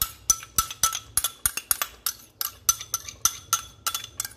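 Metal spoon repeatedly clinking and scraping against a glass bowl, about three or four sharp clinks a second, as thick yogurt is knocked out of the bowl.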